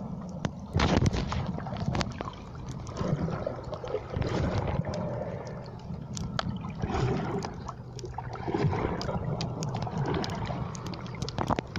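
Underwater sound as picked up by a camera below the surface while snorkeling: a muffled low rumble of moving water, with many scattered small clicks and crackles, and a louder rush about a second in.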